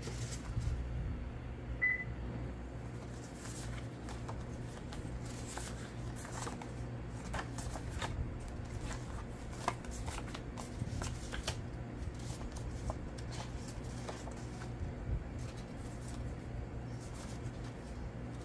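Handmade paper collage cards being handled by hand: scattered rustles and light taps as card stock is leafed through and stacked, over a steady low hum, with a brief high ping about two seconds in.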